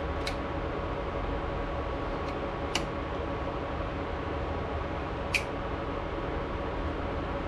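Three light clicks of metal tongs against a steel pan as wet yarn skeins are turned in dye. Under them runs the steady hum and faint whine of induction cooktops, heating the dye bath.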